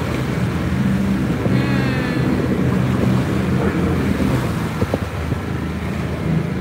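Glass-bottom boat's engine running with a steady low hum, under a wash of water and wind noise on the microphone.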